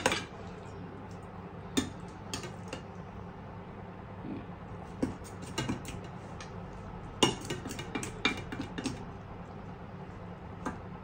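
Steel spoon clinking and scraping against a stainless-steel bowl and plate while chicken fry is served, in scattered clusters of short clicks over a steady low hum.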